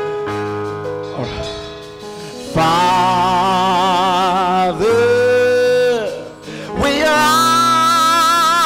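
A man singing a slow gospel worship song into a microphone over held electronic keyboard chords. His voice sustains three long notes with vibrato, the first starting about two and a half seconds in.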